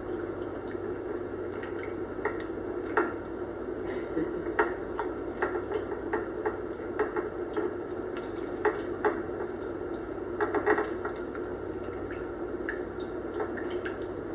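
Hands rubbing a marinade into chicken pieces on a plate make irregular wet squishes and light clicks, over a steady low hum.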